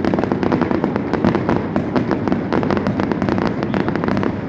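Fireworks display going off in a dense barrage: many rapid, sharp cracks and bangs packed close together, with no let-up.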